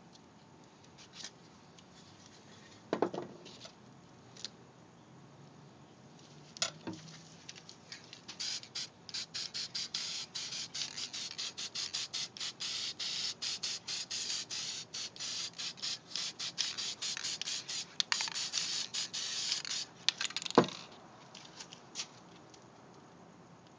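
Aerosol spray paint hissing in a long run of short, rapid spurts for about twelve seconds. A few knocks come before it, and it ends with a sharp knock, the loudest sound.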